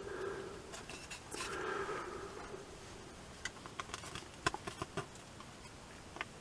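Faint scraping as a small tool spreads epoxy adhesive over a bolt head in a wooden baffle board. Then a quick run of light clicks and taps as the tool and board are handled, the loudest about halfway through, and one more tick near the end.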